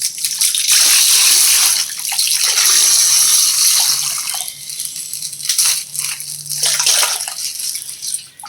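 Coloured water pouring and splashing out of a burst plastic ice bag, a steady gush for the first few seconds that then breaks into smaller, uneven splashes.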